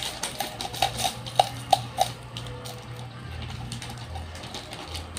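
A metal spoon clinking against a ceramic mug while stirring a drink: a handful of light, ringing clinks in the first two seconds, then quieter stirring.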